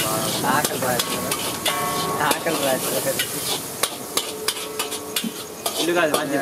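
Metal spatula repeatedly scraping and knocking against a large wok as egg bhurji (spiced scrambled eggs) is stirred over a high gas flame, with the eggs sizzling in the oil throughout.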